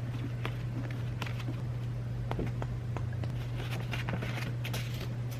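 Scattered light clicks and taps, a few to several a second, over a steady low hum.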